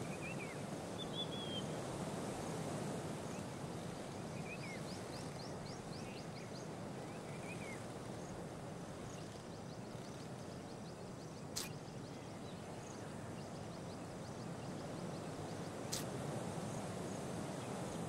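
Outdoor ambience: a steady background hiss with small birds chirping now and then, mostly in the first half, and two sharp clicks, one a little past the middle and one near the end.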